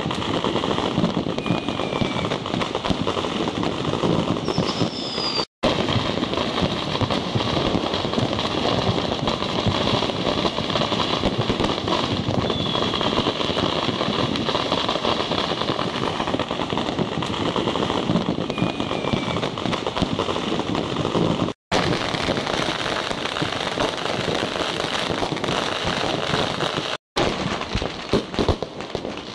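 New Year's fireworks and firecrackers going off in a dense, continuous barrage of rapid pops and crackles, with a few short high whistles. The sound cuts out to silence for a moment three times.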